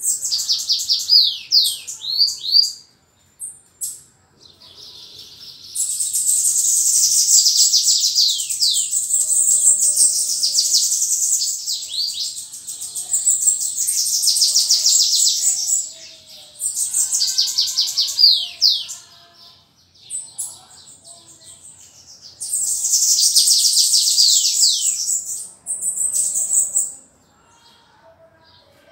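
Caged bananaquit (sibite) singing: high, rapid trilled phrases of many quick notes, several in a row with short pauses between, the longest running about ten seconds.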